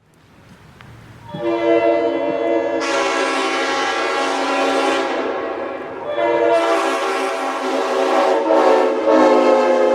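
Nathan Airchime RS5T-RRO five-chime train horn, upgraded to full orifice, sounding one long loud blast. It builds up out of silence over the first second and a half, holds a full chord, sags briefly around the middle and swells back up.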